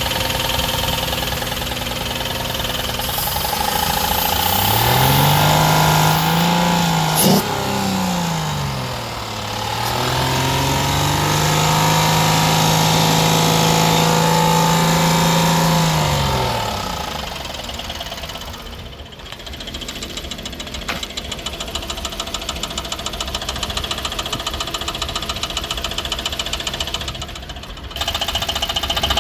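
2016 Ford Explorer V6 engine idling, revved up and held twice for several seconds before dropping back to idle, with a rapid, even knocking at idle: the engine knock that is the subject of a warranty claim.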